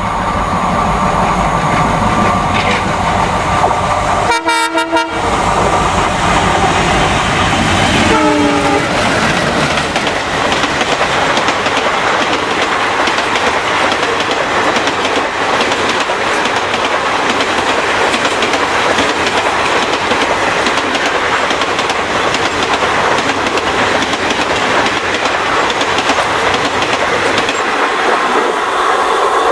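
Twin WDG-3A diesel locomotives, each with a 16-cylinder ALCO 251 engine, drone as they approach at speed. The horn sounds about four seconds in, and again around eight seconds falling in pitch as the locomotives go by. Then the express's coaches rush past with the clickety-clack of wheels over rail joints, the deep engine sound fading near the end.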